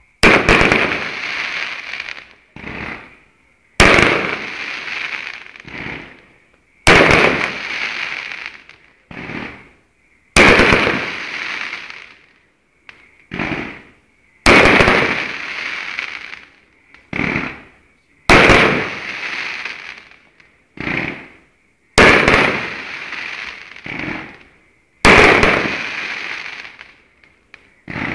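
Fireworks going off: eight loud bangs, about one every three to four seconds, each followed by a rush of noise that fades over a couple of seconds, with a smaller pop between each pair.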